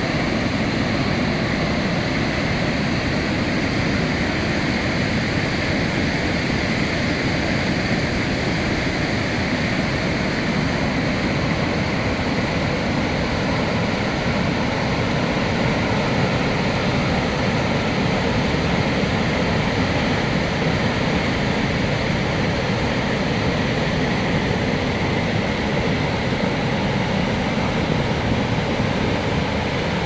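Dettifoss, a large glacial-river waterfall, giving a steady, unbroken rush of falling water that holds the same level throughout.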